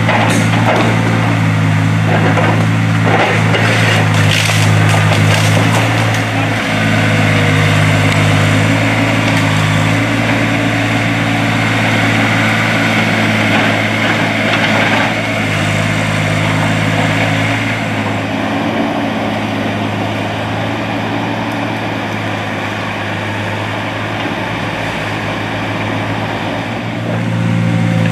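New Holland skid steer loader's diesel engine running steadily under load as it pushes a fallen tree, with wood cracking and snapping several times in the first few seconds.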